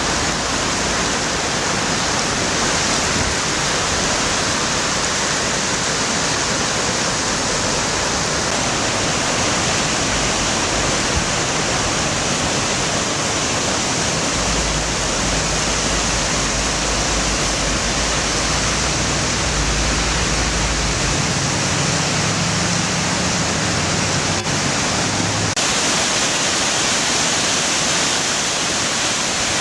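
Floodwater rushing steadily through rapids in a normally dry desert river, swollen with storm runoff after heavy rain. A low rumble joins for several seconds around the middle.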